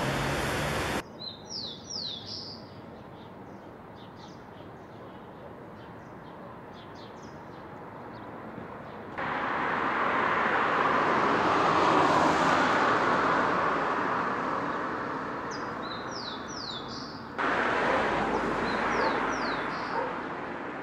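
Street ambience: small birds chirping in short, quick falling notes, with a vehicle passing by in the middle, swelling and then fading away. There is traffic noise at the very start, and the background changes abruptly about a second in and again near the end.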